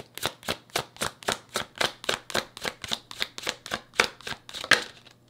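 A deck of tarot cards being shuffled by hand: a quick, even run of light card slaps, about five a second.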